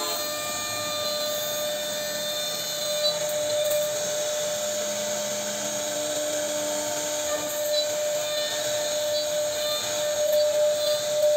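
CNC router spindle running with a steady whine while its small carving bit cuts an ornamental relief into a wooden board, growing louder and more uneven near the end as the cut bites harder.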